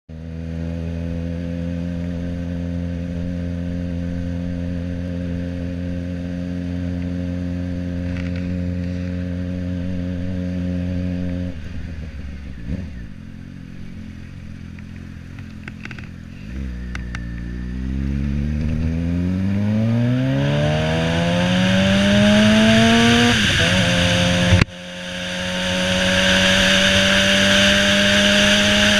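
Suzuki GSX-R 600's inline-four engine, recorded from on the bike: it holds a steady pace for about eleven seconds, drops to a low, quieter note as the bike slows, then revs up in a long rising pull. Near the end the note breaks suddenly at a gear change and settles at a steady higher pitch, with wind noise growing over it.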